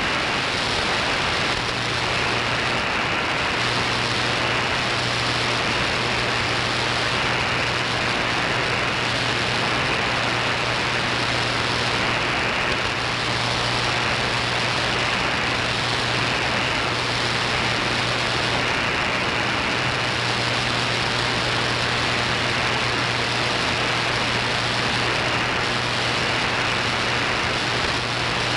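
Shortwave radio static: a steady, dense hiss from a software-defined radio receiver tuned to a weak shortwave broadcast, with a low steady hum underneath and no programme audio standing out.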